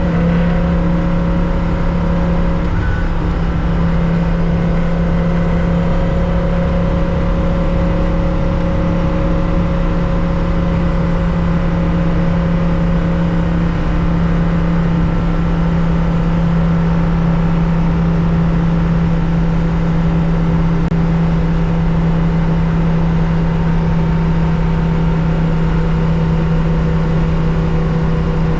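Air-cooled flat-six engine of a 1965 Porsche 911 2.0, heard from the cockpit while racing, held at one steady pitch with no gear changes. A dense rush of road and wind noise runs beneath it.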